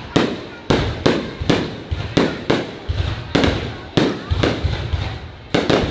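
Aerial fireworks shells bursting in quick succession, about two to three sharp bangs a second, each trailing off in echo.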